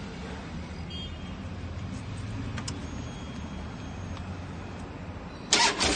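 A low steady hum, then about five and a half seconds in a Harley-Davidson Dyna Street Bob's V-twin is started: a short burst of rapid knocking as it cranks, then the engine fires and runs loudly through its 2-into-1 performance exhaust.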